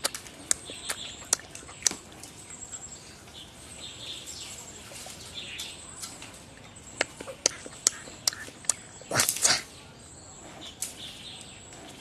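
Giant panda biting and chewing bamboo, the stalks cracking and snapping in sharp crunches: a few near the start, a quick run of them later on, and the loudest crunch about three-quarters of the way through. Faint bird chirps in the background.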